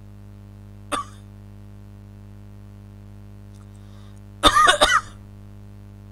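A man clearing his throat once, a short pitched rasp about four and a half seconds in, after a brief sharp sound about a second in. A steady electrical hum runs underneath.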